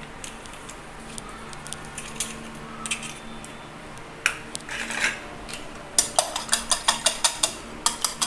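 Light clinks and a couple of sharper knocks against a bowl. About six seconds in, a whisk starts beating egg into milk and sugar in the bowl with fast, even clinks, about six strokes a second.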